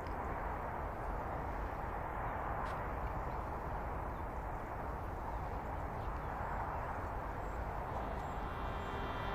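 Steady outdoor rumble and hiss of open-air ambience on the microphone, with a couple of faint knocks. Near the end a held tone begins.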